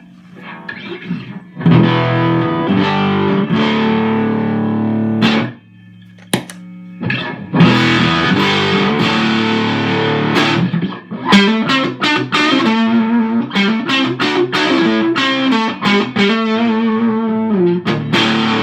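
Electric guitar played clean and through a one-knob op-amp boost pedal (a clone of the Mr. Black Tiger Boost) set at its minimum, with some grit. Held chords first, a short break with a single struck note, then steady riffing with moving notes.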